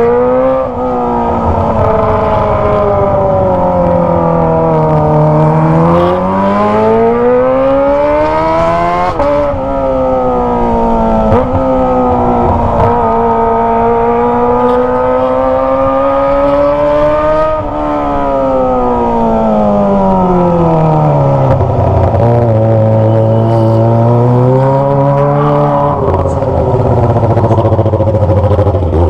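Kawasaki ZX25R's four-cylinder engine through a Toce aftermarket exhaust, its revs rising and falling as the bike is ridden, with a few sudden jumps in pitch at gear changes. About two-thirds through the revs fall steadily, and it runs lower near the end.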